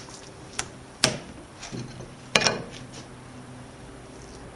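A few sharp clacks of kitchen utensils handled on a plastic cutting board, the loudest about a second in and a quick double clack a little later.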